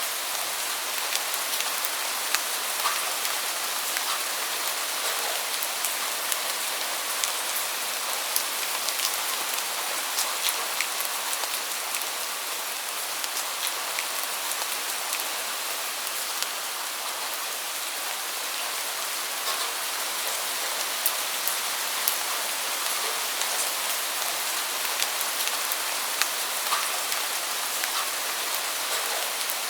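Steady rain falling: an even hiss with many sharp ticks of individual drops striking a surface.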